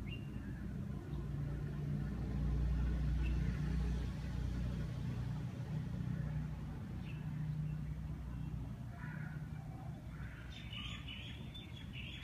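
Low rumble of a passing vehicle, swelling about two seconds in and fading after about four, with a few faint bird chirps.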